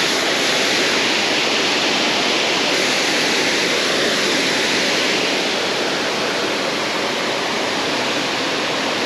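Steady rush of water pouring over a dam spillway.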